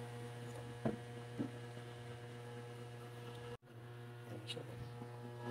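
Steady low electrical mains hum, with a few faint clicks from metal tuning-peg parts being handled at the headstock. The sound drops out for an instant a little past halfway.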